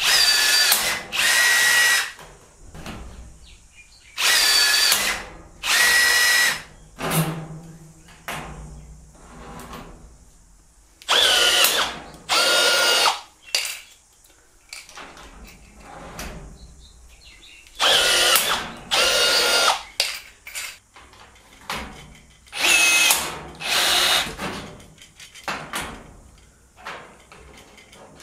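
Cordless battery rivet tools, a Makita 40V XGT and a Bosch 18V, setting 1/4-inch (6.4 mm) blind rivets. About five times the tool's motor whirs in two back-to-back runs of a second or so, with quieter handling clatter in between.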